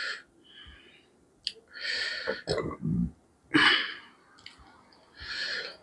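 A man's breathing: several short, hissy breaths out about a second and a half apart, with a brief low murmur about three seconds in.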